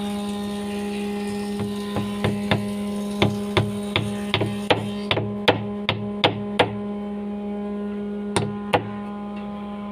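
Hammer driving nails into a wooden plank to pin it in place: a run of about fifteen quick strikes, roughly three a second, then two more strikes near the end, over a steady electrical hum.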